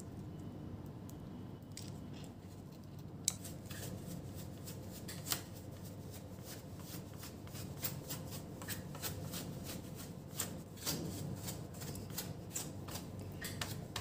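Paintbrush bristles sweeping and scratching across a laptop motherboard to brush off dust, in quick repeated strokes that start about three seconds in; before that only faint small handling clicks.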